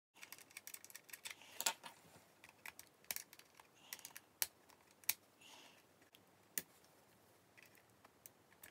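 Small screwdriver clicking and scraping in the screws under a model locomotive's bogie as they are worked loose. An irregular run of light clicks, thickest in the first two seconds or so, with a few soft scrapes.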